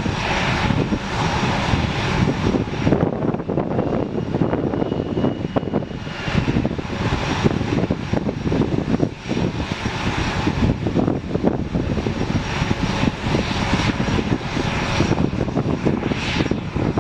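A-10 Thunderbolt II jets taxiing past, their twin General Electric TF34 turbofans running at low taxi power: a steady rush of jet noise with a thin high whine over it.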